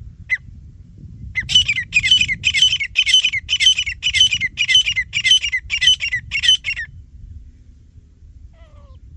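Teetar (francolin) calling: one short harsh note, then from about a second and a half in, a loud run of about a dozen harsh, ringing calls at roughly two a second. The run stops abruptly near the end.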